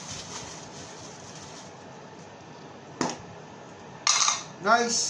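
Gift packaging being opened: a single sharp click about three seconds in, then a short rustle, over quiet room noise.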